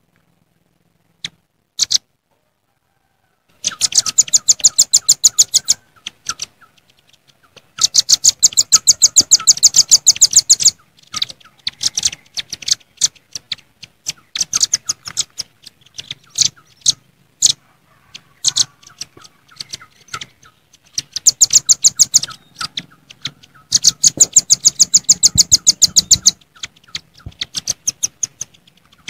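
Velvet-fronted nuthatches (red-billed nuthatches) calling: after a few single sharp notes, rapid trills of high chipping notes come in bursts of about two seconds, several birds overlapping. These are the excited calls used to draw in a rival.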